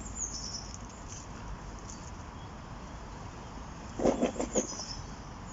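A steady low outdoor rumble, with a quick handful of knocks about four seconds in, like gear being handled, and a few faint high bird chirps.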